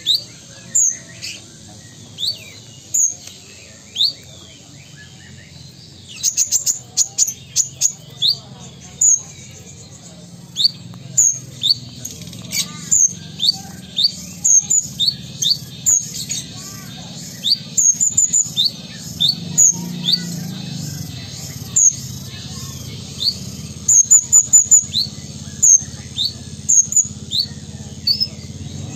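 Van Hasselt's sunbird (kolibri ninja) singing: a long series of short, thin, high chirps, some rising and some falling, about one every half second, broken by quick rattling runs of rapid notes about six seconds in and again near the end.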